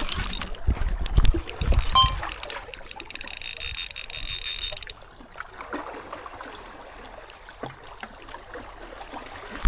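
Water sloshing and splashing, with a few knocks in the first two seconds.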